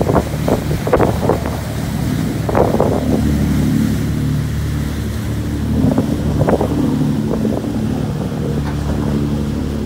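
Boat engines drone steadily under the rush and splash of churning water between a pilot boat's hull and a ferry's side, with wind buffeting the microphone. The splashes are heaviest in the first second or so and come again about two and a half and six seconds in.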